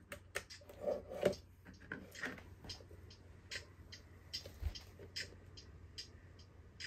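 Faint, irregular clicks and taps from hands handling a small Lepai audio amplifier: a cable being fitted at its back and its front control knobs being turned. A faint steady low hum runs underneath.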